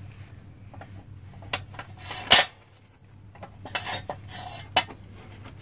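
Sharp metallic clinks and knocks at a stainless steel pot of quench water holding a hot copper bar: a handful of scattered hits, the loudest about two seconds in.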